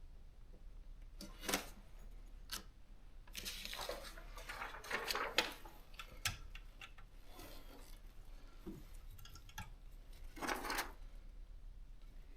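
A Privileg JP 1 typewriter being handled and readied: scattered sharp clicks and knocks, with a longer rattling, rustling stretch a few seconds in and another short one near the end, rather than a steady run of typing.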